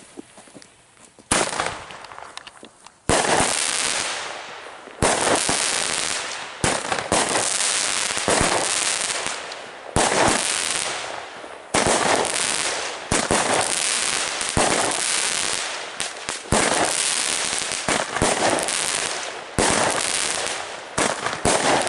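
Weco 'Aligator' 15-shot fireworks cake firing, shot after shot at irregular intervals of one to two seconds. Each shot is a sudden crack followed by a fading rush of noise. A single crack comes about a second in, and the steady run of shots begins about three seconds in.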